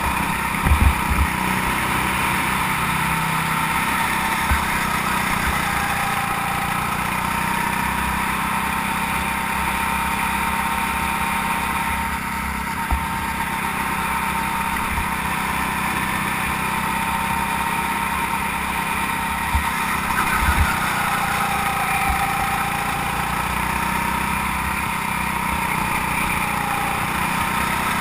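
Go-kart engine running at speed, heard from the driver's seat, its pitch falling and rising with the throttle. A few short low thumps break in, the strongest about a second in and around twenty seconds in.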